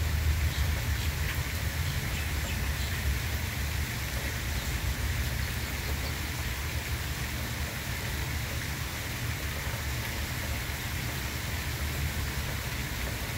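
Steady outdoor noise, with wind buffeting the microphone in an uneven low rumble.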